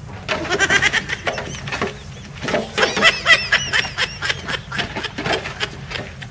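High-pitched, squealing, laugh-like vocal sounds in two stretches, the first starting just after the start and the second from about two and a half seconds in, wavering up and down in pitch.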